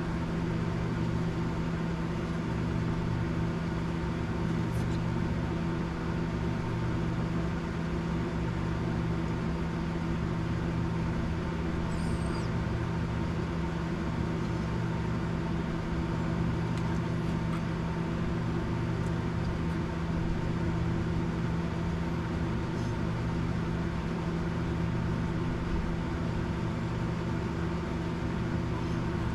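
Steady mechanical hum at an even level, with a few faint light clicks.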